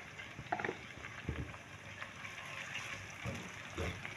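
Sliced onions and cumin seeds sizzling softly in hot oil in a steel pot, with a wooden spoon stirring them and knocking against the pot a few times.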